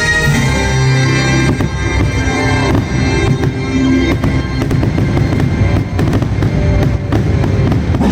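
Fireworks banging and crackling in quick succession over the show's music. The bursts grow denser through the second half while held musical chords fade under them.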